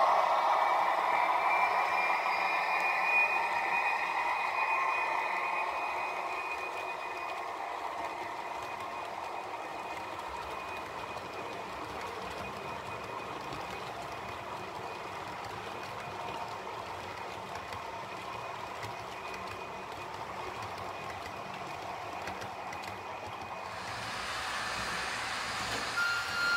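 H0 scale model train running on the layout's track: wheels rolling on the rails with a high motor whine, loudest at first and fading over several seconds as the train moves away. Near the end the sound rises again with new high tones as another model train approaches.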